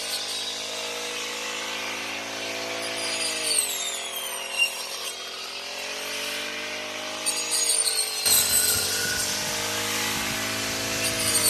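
Small engine of a handheld rice reaper running steadily. Its pitch sags about three and a half seconds in and then recovers, and a rough crackling noise joins the engine about eight seconds in.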